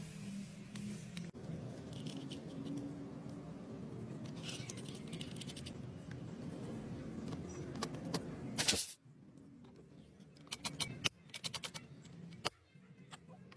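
A motor runs with a steady low hum and occasional clicks, then a short loud burst of hiss. After that the hum stops and a quick run of sharp clicks and taps follows.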